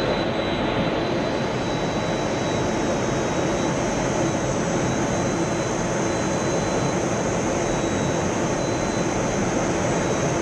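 F-16 fighter jet in flight heard from inside the cockpit: a steady rush of engine and airflow noise with a faint, high, steady whine over it.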